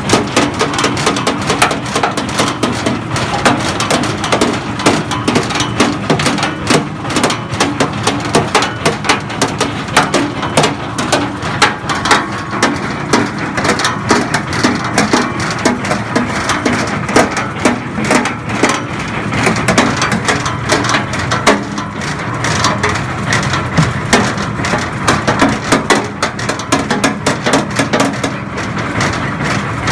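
Feed-making machine running, with a dense, rapid, unbroken clatter of knocks, like material being crushed and rattled inside it.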